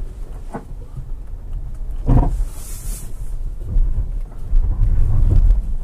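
2016 Mitsubishi Outlander's 2.4-litre four-cylinder running as the SUV crawls over a steep dirt hill: a low rumble with a few knocks and jolts, the loudest about two seconds in.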